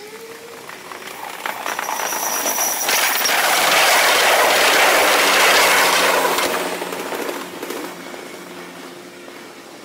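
A Kintetsu limited-express electric train passing on the track. Its running noise swells to a peak about four to six seconds in, with a brief high thin whine as it approaches, then fades away.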